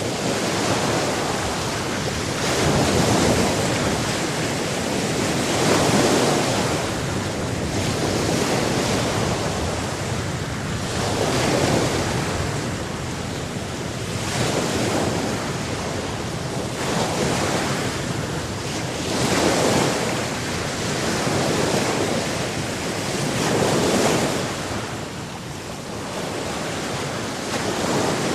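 Sea surf: waves breaking and washing on the shore in a continuous rush that swells with each wave every few seconds.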